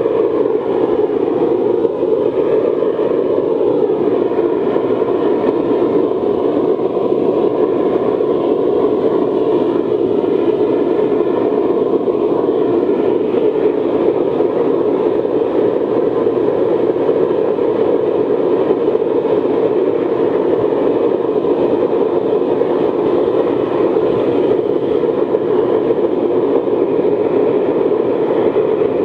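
Forced-air waste-oil burner firing steadily into a dirt furnace: a loud, even rush of blower air and flame, with no change in pace.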